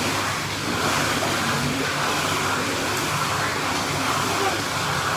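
Steady rushing of water in an indoor pool, an even hiss with no breaks.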